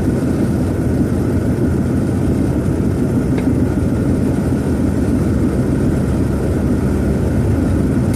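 Steady engine and road noise inside the cabin of a 1966 Ford Thunderbird on the move, its V8 running at an even pace.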